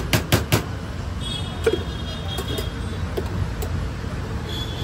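Steady low rumble of street traffic around a food stall. A quick run of sharp clicks comes in the first half second, and a few faint taps follow later.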